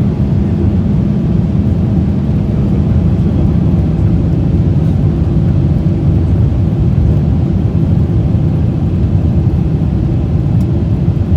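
Steady low rumble of a Boeing 777-300 airliner in flight during the landing approach: engine and airflow noise, heard inside the cabin.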